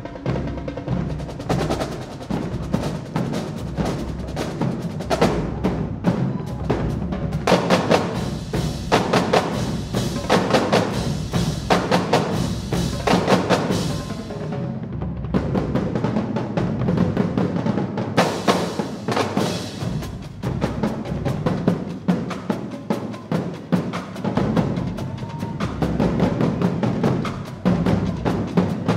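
Marching drumline playing a fast cadence: rapid snare and tenor drum strokes over booming bass drums, busiest and loudest in passages about a quarter of the way through and again past the middle.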